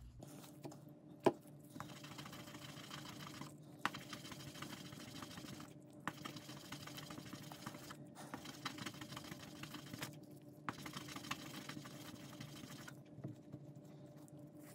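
A resin die being rubbed back and forth on a sheet of wet pink polishing paper, one of the fine grades that polishes rather than removes material: a faint, quick scratchy rubbing with a few short pauses. A light knock about a second in, and a faint steady hum underneath.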